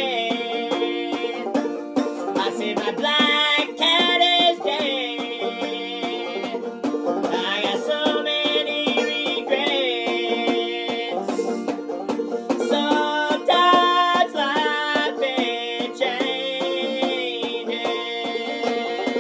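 Banjo played clawhammer style: a steady run of picked notes and brushed strums.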